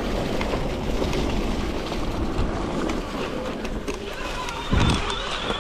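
Electric mountain bike ridden over a dirt trail: a steady rumble of wind and tyres with scattered small clicks and rattles, and a louder thump near the end. A steady high whine starts just before the thump.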